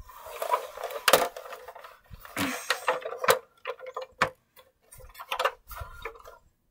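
Plush toys and a plastic toy car being handled and shifted about on a carpet: a string of irregular clicks and knocks with rustling in between.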